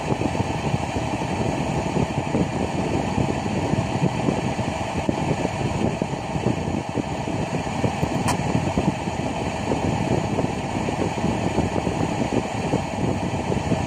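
Steady engine-room machinery drone, rough and continuous, with one short sharp click about eight seconds in.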